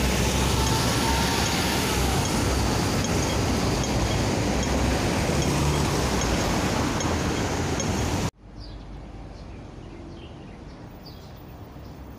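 Road traffic with buses driving past, a loud steady rush of engine and tyre noise. About eight seconds in it cuts off abruptly to a much quieter background with a few faint, short high chirps.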